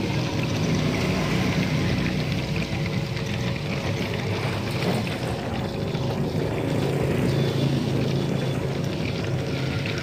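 Small air pump humming steadily while air bubbles through the gasoline and water bottles of a homemade gasoline-vapour gas generator.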